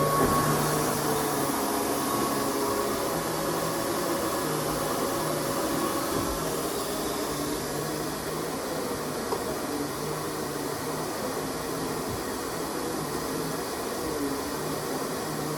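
Kenmore 400 Series canister vacuum running steadily, a continuous motor noise with a low hum underneath.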